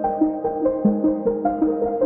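Soft instrumental background music: a keyboard playing a flowing line of sustained notes, about four a second.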